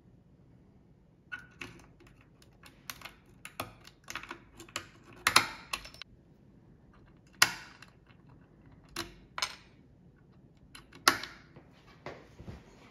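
Irregular sharp metallic clicks and knocks of small brass padlocks and keys being handled, clamped in a lockpicking vise and picked, with a few louder clacks among them.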